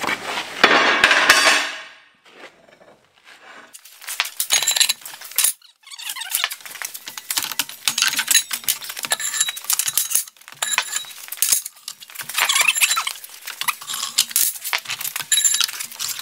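Steel disc blades of a Great Plains Turbo Max disc gang being handled and stacked onto the gang, with repeated metal clanks and clinks and ringing from the steel blades. A loud burst of noise comes about a second in.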